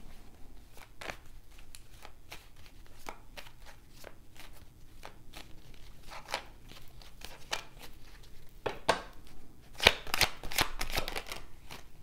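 A tarot deck being shuffled by hand: a run of light card-on-card flicks and clicks, turning into a louder, quicker flurry of snaps near the end.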